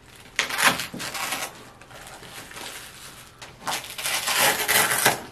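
Crinkling and rustling of plastic wrapping as tools are unwrapped in a zippered tool case, in two spells: a short one about half a second in and a longer, louder one near the end.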